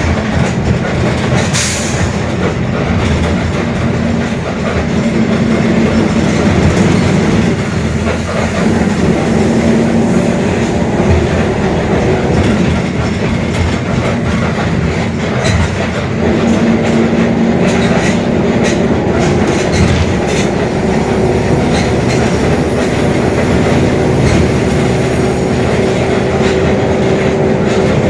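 Mercedes-Benz OF-1721 BlueTec 5 bus running on the road: steady diesel engine and driveline rumble, with a droning tone that rises and falls in pitch from the growling rear differential.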